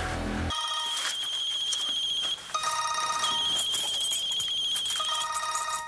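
Mobile phone ringing with an electronic ringtone: steady beeping tones in two long runs, with a short break after about two seconds.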